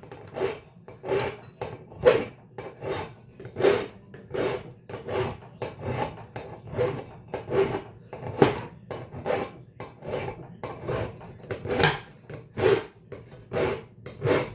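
Hand file rasping back and forth over the smeared head of a metal fastener in even strokes, about two a second, knocking off the burr.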